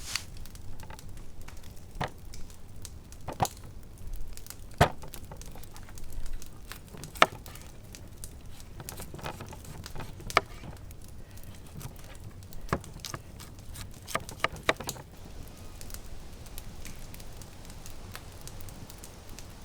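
Campfire crackling, with irregular sharp pops of burning wood.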